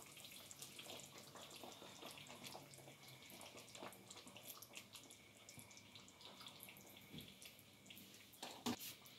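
Faint trickle of milk poured slowly from a plastic jug into a pot of chicken curry on the stove, with small faint crackling clicks. A short, louder knock comes near the end.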